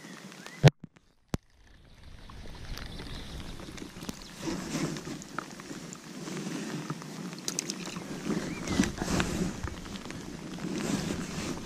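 Steady rain and wind noise on the camera's microphone, with irregular rustling and bumps from the angler's rain jacket and his hands working the rod and line. A sharp knock comes just after the start, then about a second of near silence before the rain noise returns.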